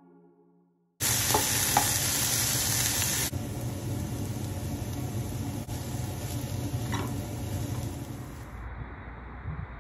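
Diced peppers and onion sizzling in a hot frying pan, starting suddenly about a second in: water poured into the pan sets off a loud hiss for about two seconds, then a steadier sizzle with a few light clicks.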